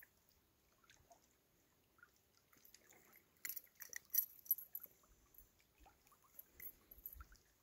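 Knife cutting and scraping at a freshly caught perch: faint, with a cluster of short scratchy clicks and scrapes about three to five seconds in.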